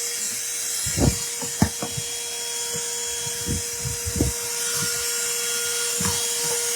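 Small motor of a handheld car vacuum cleaner running with a steady whine and hiss, with a few scattered clicks and knocks from the plastic body being handled.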